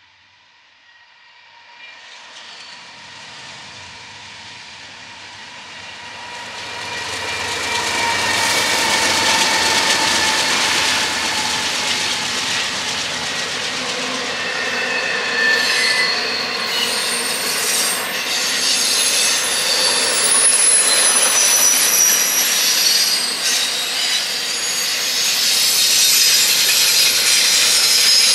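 Double-stack intermodal freight train approaching and then rolling past close by. It grows from faint to loud over the first several seconds and then holds loud. Wheels squeal in high tones and click over the rail joints as the container cars go by.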